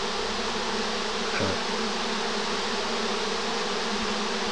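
Honeybee swarm buzzing in flight: a steady, dense drone of many bees together, a swarm that has left its hive and is settling into a cluster in the treetops.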